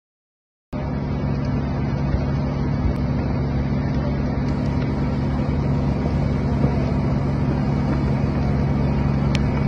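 Steady outdoor rumble at a large building fire, with a constant low engine-like hum under it, cutting in suddenly under a second in after dead silence.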